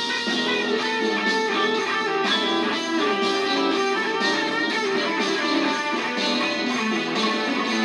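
Solid-body electric guitar being played, picked notes and chords ringing on and overlapping in a slow, steady line.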